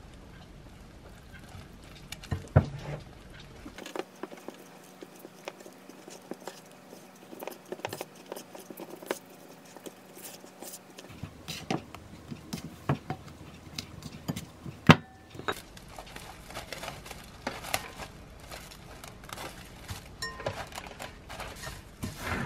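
Silicone spatula stirring flour into bread dough in a glass mixing bowl: irregular scraping and soft tapping against the glass, with a few sharper knocks.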